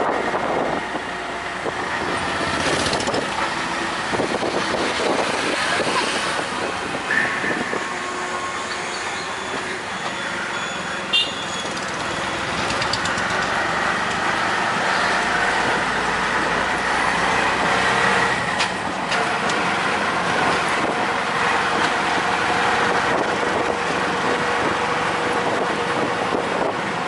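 Auto-rickshaw running along a street, its small engine droning steadily with road and traffic noise, heard from inside the open passenger cab. A short sharp sound stands out about eleven seconds in.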